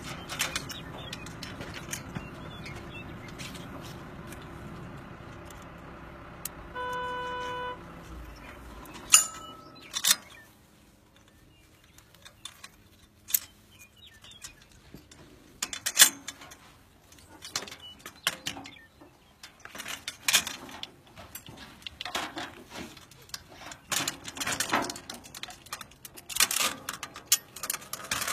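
Scattered metal clanks, knocks and rattles of a line cart's frame and fittings being worked over a suspension clamp on a bundled transmission conductor, through the second half. Before that a steady low hum runs for about eight seconds, with a single beep lasting about a second near its end.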